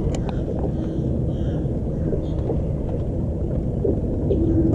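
Steady low rumble with a thin, even hum that fades out midway and comes back near the end, typical of a bass boat's electric trolling motor running under wind on the microphone.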